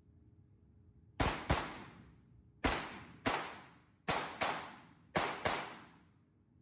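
Eight pistol shots fired in four quick pairs, each shot ringing out in a reverberant indoor range. The last pair comes about five and a half seconds in.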